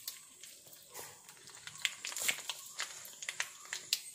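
Hot oil with spices frying in a wok, crackling with irregular sharp pops.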